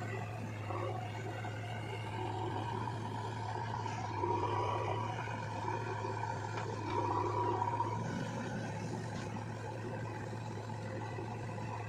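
JCB 3DX backhoe loader's diesel engine running steadily, growing louder with a whine twice, about four seconds in and again around seven seconds, as the front loader bucket lifts and tips a load of soil.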